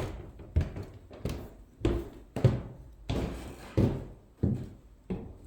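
Footsteps on painted wooden floorboards: a steady walking pace of firm knocks, about one step every 0.6 seconds.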